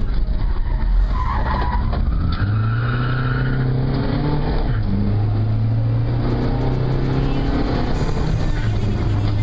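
Rally car engine running hard, its pitch stepping up and down several times as the driver works through the gears. A tyre squeal can be heard in the first few seconds.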